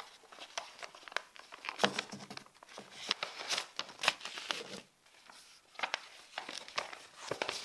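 Paper rustling and crinkling in irregular crackles as an envelope is opened and the letter inside is pulled out and unfolded, with a brief pause about two-thirds of the way through.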